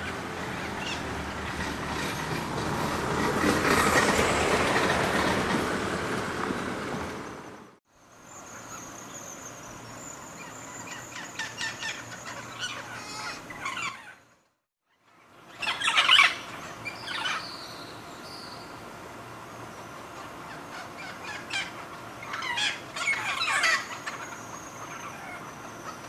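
Hispaniolan parrots giving harsh squawking calls in short bursts, loudest about two-thirds of the way through, over a high steady insect-like whine. For the first several seconds a loud, even wash of noise swells and then cuts off abruptly.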